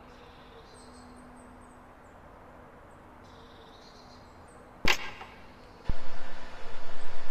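Quiet background with a few faint high chirps. About five seconds in comes one sharp click, and a second later a sudden loud rushing noise starts, surging and fading several times a second.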